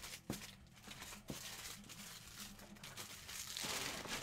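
Soft crinkling and rustling of something being handled, with a few sharp clicks; the rustling grows louder near the end.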